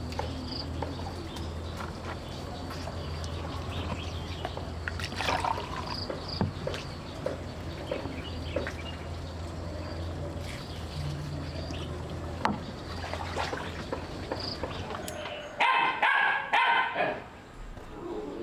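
A dog barking, four short loud barks in quick succession near the end, after a steady low hum stops.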